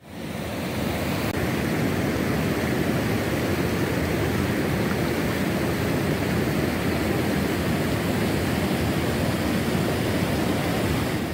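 Steady rush of fast-flowing floodwater, a dense even noise that fades in over about the first second and then holds level.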